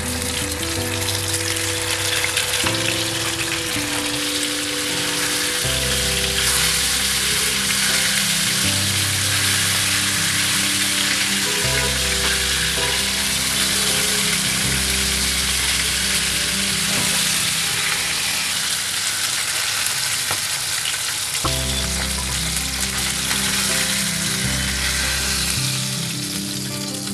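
Pomfret fish frying in hot mustard oil, a steady sizzle over background music.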